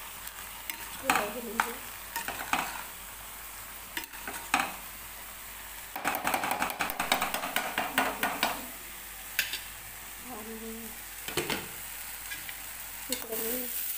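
Wooden spatula stirring and scraping spiced rice with tomatoes in a kadhai, over a steady sizzle of frying. About six seconds in comes a run of quick scraping strokes lasting a couple of seconds.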